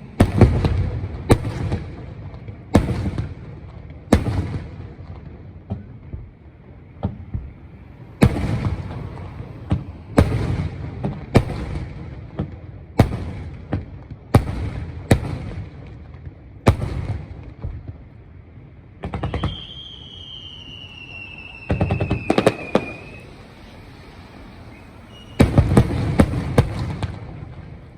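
Aerial fireworks shells bursting: sharp bangs with an echoing low rumble, every one to two seconds, then quick clusters of rapid crackling reports near the end. About two-thirds of the way through, a high whistle sounds for about three seconds, falling slightly in pitch.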